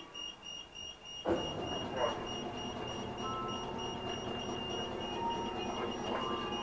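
Streetcar equipment heard from inside the motorman's cab: a steady mechanical hum starts suddenly about a second in and runs on evenly, under a constant high-pitched tone.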